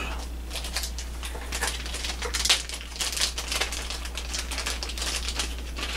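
Rapid rustling and light clicking from handling as a replacement CD optical pickup assembly is taken out, over a steady low hum.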